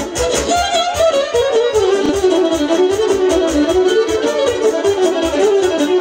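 Live Serbian kolo dance music from a wedding band: keyboards carry a wavering lead melody over a steady drum beat.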